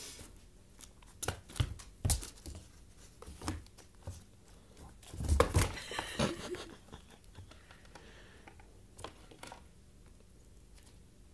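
A kitten leaping and pouncing, its paws and claws knocking and scratching against the wall and floor in scattered thumps and scuffles. The sounds are busiest and loudest about five to six and a half seconds in.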